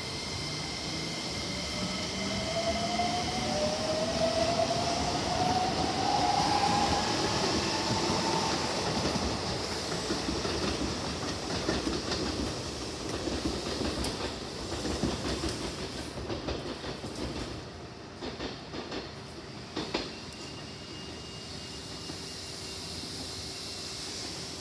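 Keikyu electric train pulling out of the station: its traction motors whine, rising in pitch as it picks up speed, then the wheels clatter over the rail joints and the sound fades as it moves away.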